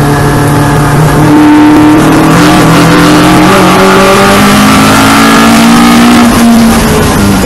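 Onboard sound of an Alfa Romeo Giulia GTJ's 2-litre twin-cam four-cylinder racing engine accelerating hard, revs climbing steadily, with an upshift near the end.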